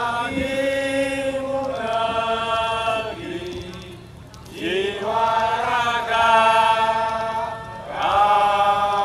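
Voices singing long, drawn-out notes in unison, each held for a second or two, with a short softer break about four seconds in.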